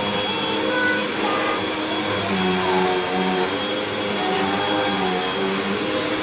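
Vacuum cleaner running continuously, with a steady high whine over a lower hum that wavers in pitch.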